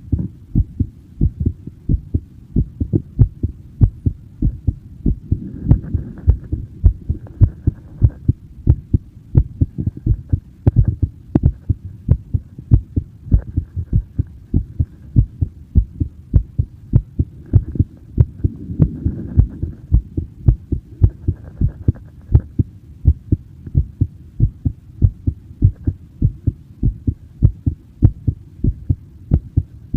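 A person's heartbeat heard up close: a steady, even run of low thumps.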